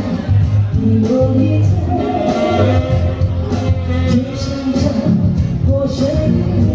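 Live band music played loud through a PA: a woman sings into a microphone over an instrumental backing with a strong bass and a steady beat.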